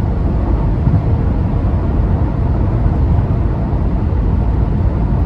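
Steady low road and engine rumble of a moving car, heard inside the cabin.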